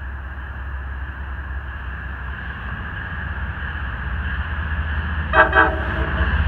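MBTA HSP-46 diesel-electric locomotive approaching with a low rumble that grows steadily louder. It sounds one short horn blast of several notes together about five seconds in.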